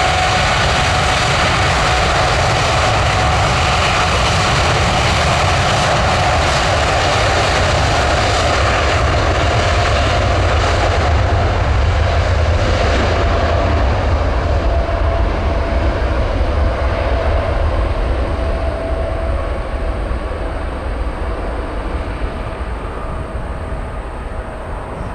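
Jet airliner engines running loud, a steady whine over a deep rumble. The sound loses its hiss and slowly fades over the last ten seconds as the aircraft moves away.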